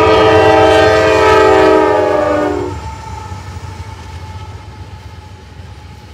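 Norfolk Southern diesel locomotive's air horn sounding one long blast of several notes at once. It cuts off a little before halfway, leaving the train's low rumble fading away.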